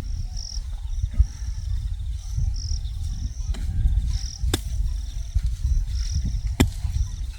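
Crickets chirping in short high-pitched pulses that repeat throughout, over a steady low rumble. Two sharp clicks come about four and a half and six and a half seconds in.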